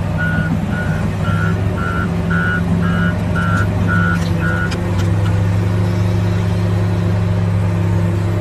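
Hitachi Zaxis 470 excavator's diesel engine running steadily as the machine travels on its tracks, with its travel alarm beeping about twice a second until about halfway through, when the beeping stops.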